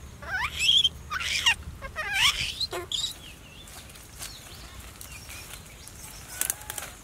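A baby monkey squealing: four high-pitched calls in the first three seconds, each gliding up and down in pitch. Near the end there is a short rustle of leafy branches being pulled.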